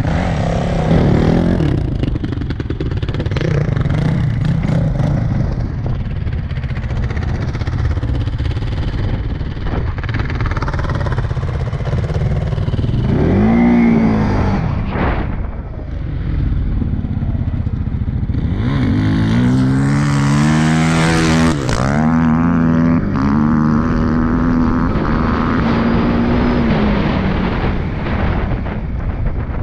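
CFMOTO CForce 625S ATV engine running under way, revving up in rising sweeps about halfway through and again about two-thirds in, then holding a steady pitch.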